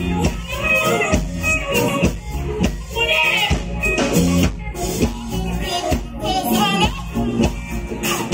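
Live band music over a stage PA: a woman singing over guitars and keyboard, with a steady beat.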